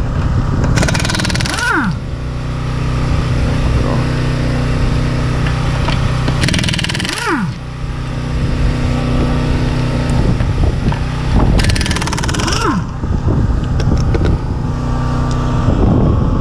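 Pneumatic impact wrench loosening wheel lug bolts in three short bursts of about a second each, each ending in a falling whine as the tool spins down. A steady motor hum runs underneath.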